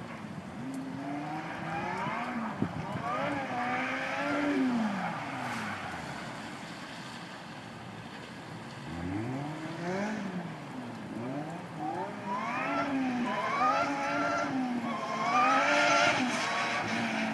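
Lightweight open sports car's four-cylinder engine revving up and down again and again as it drives, its pitch climbing and dropping repeatedly. It dies down to a lull midway, then picks up again and is loudest near the end.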